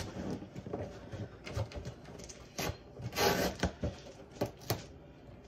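Scissors and hands working at a cardboard shipping box to get it open: scattered clicks and short scrapes, with one louder, longer rasp of cardboard or tape about three seconds in.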